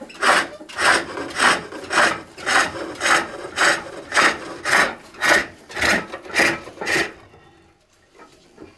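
Hook tool cutting inside a wooden box turning on a pole lathe: a rhythmic rasping cut on each treadle stroke, nearly two a second, stopping about seven seconds in.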